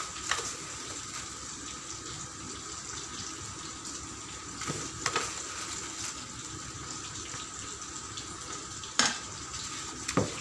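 Spiced water for chicken biryani boiling in a pot, a steady bubbling hiss, with a few short knocks of a spoon against the pot as it is stirred.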